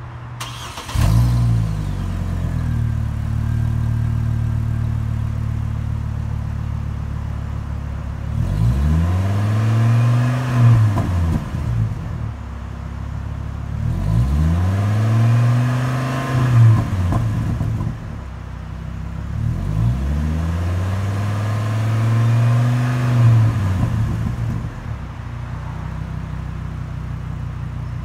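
Exhaust of a 2008 Chevy Colorado's 3.5-litre inline-five engine idling, stepping up in level about a second in. It is then revved three times, each rev rising and falling back over about three seconds, before settling back to idle.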